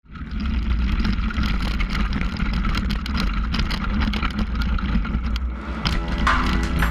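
Mountain bike ride heard from a rider-mounted camera: wind rushing on the microphone with tyres crunching on gravel and small rattles from the bike, fading in at the start. Music comes in about six seconds in.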